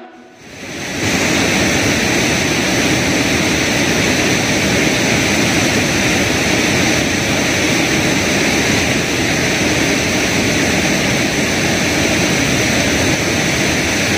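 Steady rushing of a fast-flowing river swollen with floodwater after two days of rain, fading in over the first second.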